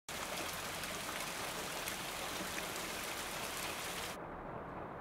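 Steady hiss of rain with faint pattering drops. A little after four seconds it cuts off abruptly, leaving a duller low rumble.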